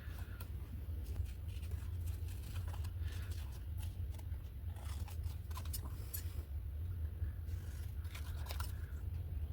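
Scissors snipping paper in small, irregular cuts, over a steady low hum.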